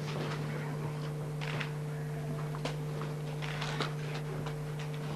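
Steady low electrical hum with a fainter higher tone, under scattered short sharp clicks and small knocks.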